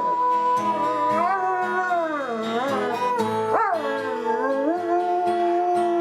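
A dog howling along with music, its long wavering howls sliding up and down in pitch, with one sharp upward swoop partway through.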